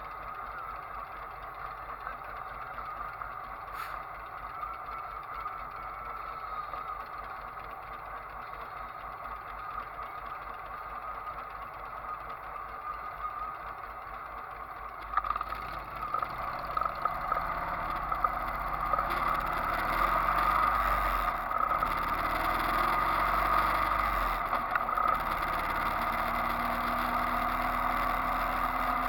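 Motorcycle engines idling while stopped, then about halfway through they pull away and the engine and road noise grow louder as the bikes ride on.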